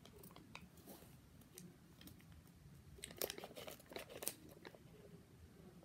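Folded paper of an origami flasher model crinkling and rustling faintly as it is handled and spread open, with a cluster of louder crackles about three to four seconds in.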